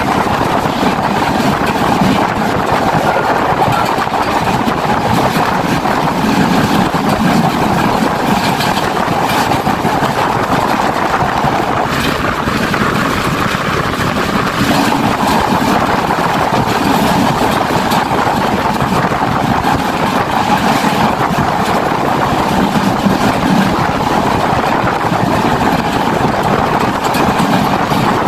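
Passenger train running at speed, heard from an open carriage doorway: a steady, loud rumble and rattle of wheels on the rails.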